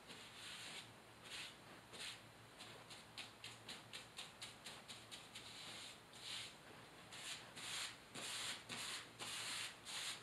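Paint brush scrubbing Hydro Ban liquid waterproofing membrane onto the sheet membrane around a shower drain flange. It makes a run of quick, scratchy brush strokes, about three a second, which become longer and louder over the last few seconds.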